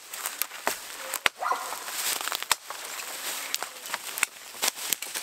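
Small axe chopping branches off a felled tree: a few sharp, irregular knocks, the strongest about a second in, with twigs and brush crackling between them.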